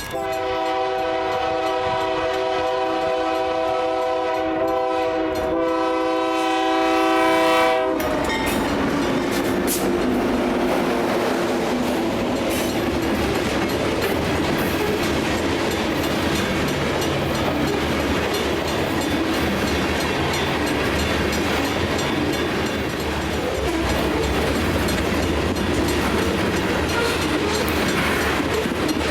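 A freight train's diesel locomotive sounds its multi-note air horn as a chord in two blasts, a long one and then a shorter one, ending about eight seconds in. The locomotive then runs past, and the freight cars roll by with a steady rumble and clickety-clack of wheels over rail joints.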